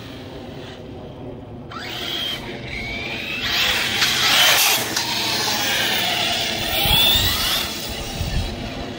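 Arrma Typhon 6S RC buggy's brushless motor and drivetrain whining in short part-throttle runs, several rising whines as it speeds up, loudest about halfway through and again near the end.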